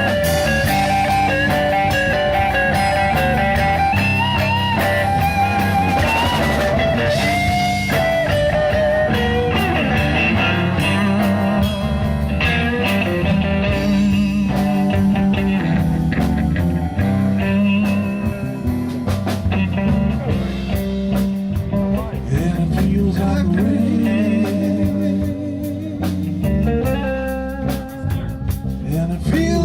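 Blues band playing an instrumental break: a lead guitar solo with bent notes over bass and drums.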